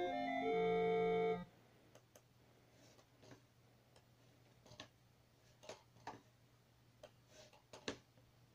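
Amiga A600 playing a tracker music module with clean, steady synth-like notes that cut off abruptly about a second and a half in. After that, a faint steady hum with a string of short, irregularly spaced mouse-button clicks.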